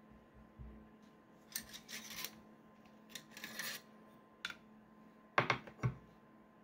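Metal parts of a KAC M110 rifle's action being worked by hand as the rifle is opened up: two stretches of scraping and sliding, then a small click and two sharp metallic clicks near the end, the loudest sounds.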